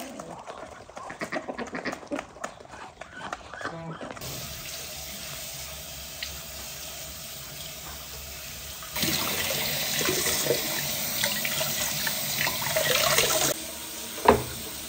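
Chickens and ducks calling for the first four seconds. Then, after a quieter stretch, a kitchen tap runs at full flow into a stainless steel sink as raw meat is rinsed under it, for about four and a half seconds, cutting off suddenly. A single sharp knock comes near the end.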